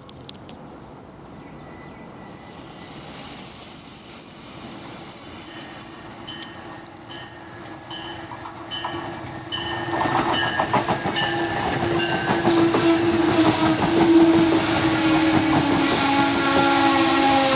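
MARC Penn Line bilevel commuter train, cab car leading, approaching and running past. About six seconds in a bell starts dinging steadily, roughly three strikes every two seconds. From about ten seconds in, the rush and clatter of the wheels on the rails grows loud, with a steady hum and some wheel squeal.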